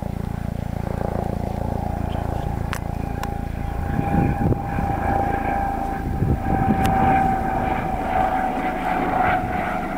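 A steady engine drone, slowly falling in pitch, over wind buffeting the microphone, which turns gusty from about four seconds in.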